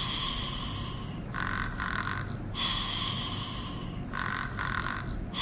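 Pink Fingerlings baby monkey toy snoring in its eyes-closed sleep mode, an electronic snore played through its small speaker. Each cycle has two alternating parts, like a breath in and out, and repeats about every three seconds.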